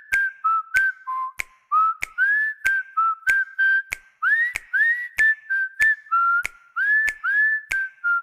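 A Huawei Nova 5T EMUI 12 ringtone playing: a whistled melody of short notes that slide up into pitch, over sharp regular clicks about two to three a second.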